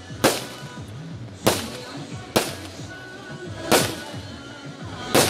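Aerial firework shells bursting overhead: five loud, sharp bangs at uneven intervals of about one to one and a half seconds.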